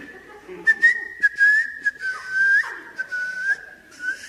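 A man whistling an idle, wandering tune in short phrases. It is a single thin pitch that wavers up and down, each phrase ending on a small upward flick, with brief breaks between phrases.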